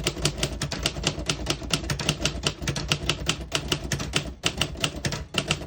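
Typing a sentence on a 1940 Royal Aristocrat manual portable typewriter: quick, even keystrokes of the typebars striking the platen, about six or seven a second, with a short pause about four and a half seconds in.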